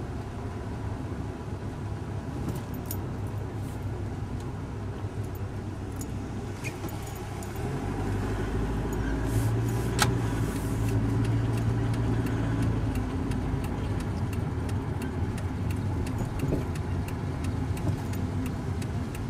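Car cabin noise while driving: engine hum and road noise, growing louder and deeper about eight seconds in, with scattered light clicks.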